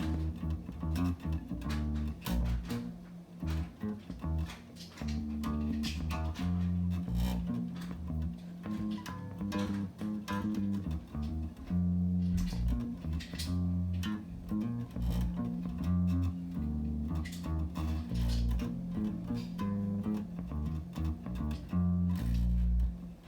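Electric bass guitar played through a vintage tube compressor: a run of plucked low notes and riffs.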